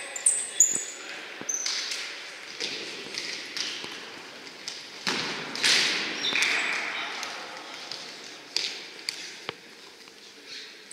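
Indoor futsal play in an echoing sports hall: players' shoes squeaking briefly on the court floor, the ball knocked about with sharp thuds, and players shouting, loudest about five to six seconds in.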